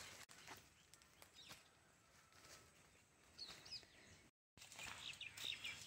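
Near silence: faint outdoor ambience with a few faint bird chirps, about three and a half seconds in and again near the end, and a brief dead dropout just past four seconds.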